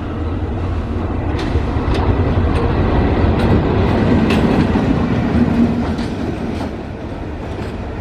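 WDS6R diesel shunting locomotive running light past at speed, its engine rumbling steadily. The rumble grows loudest about midway as it passes close, then eases as it moves away. Sharp wheel clicks over rail joints sound throughout.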